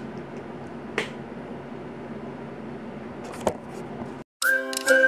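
Quiet room tone with a few sharp clicks, one about a second in and two more near three and a half seconds. Just after four seconds the sound cuts out briefly and a loud, bright outro jingle with a whistle-like melody starts.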